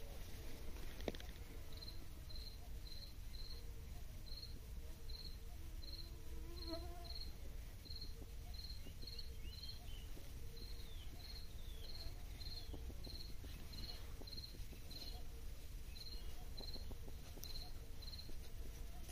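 A cricket chirping steadily in the grass, short high chirps at one pitch, about two a second, starting about two seconds in.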